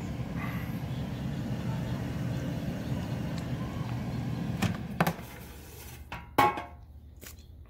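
Gourmia GAF838 digital air fryer's fan running with a steady low hum that cuts out about five seconds in as the basket is pulled from the unit. A sharp click and then a louder clunk follow as the basket slides free.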